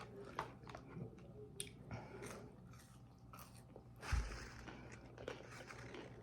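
A person biting and chewing food close to the microphone, with scattered small crackles, and a low thump about four seconds in.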